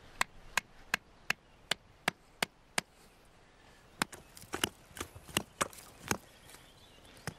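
Tipi stake being hammered into the ground: a run of sharp, evenly spaced knocks about three a second, then after a short pause a second, less even run of strikes.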